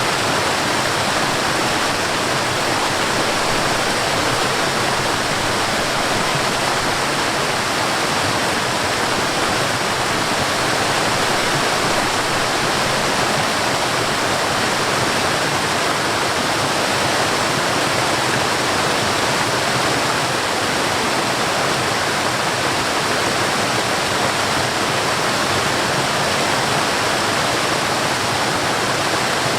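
Water rushing steadily over a small waterfall and down a stream, an even, unbroken rush with no change.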